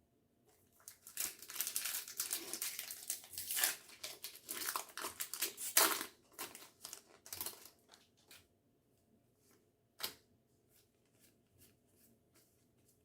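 Foil Pokémon booster pack wrapper crinkling and being torn open, a run of rustling and ripping lasting about six seconds, followed by a few light clicks and handling sounds of the cards.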